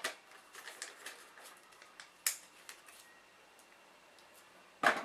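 Light clicks and paper rustles from hands handling a white plastic drone transmitter and a paper label, with a louder knock near the end.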